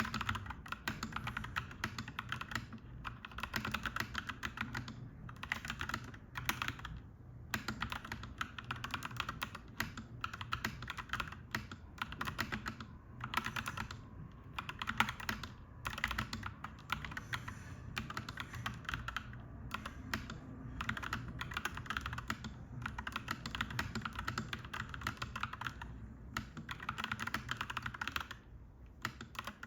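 Clacky mechanical keyboard being typed on in quick runs of keystrokes with brief pauses between them, over a steady low background hum.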